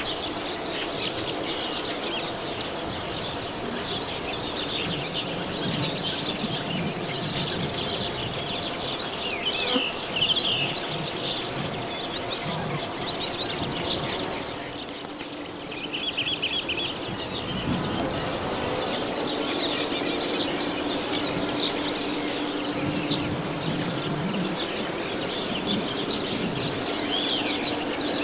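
Small songbirds singing and chirping in quick, overlapping phrases over a steady low hum of bees and bumblebees foraging on flowering phacelia. The birdsong briefly thins out about halfway through.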